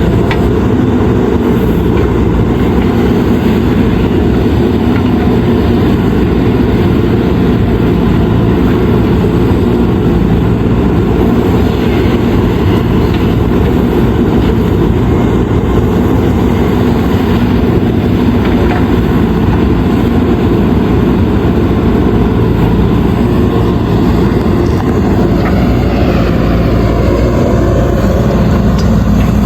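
JCB 3DX backhoe loader's diesel engine running steadily at a constant pitch while the machine works.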